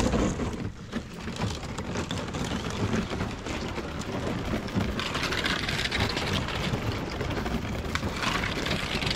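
Thin ice crackling and tinkling as a kayak pushes through it: a dense patter of small cracks and clicks.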